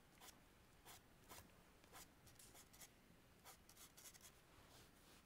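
Faint scratching of a red chalk pencil on textured drawing paper, in a quick, irregular series of short strokes.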